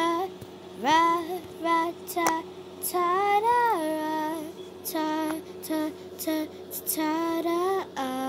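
A girl singing a slow melody, holding long notes in short phrases with brief pauses between them.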